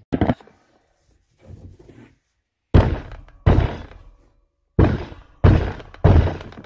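Heavy thumps on a wooden OSB shed floor: a light pair right at the start, then six loud blows at irregular intervals from about three seconds in, each dying away over about half a second.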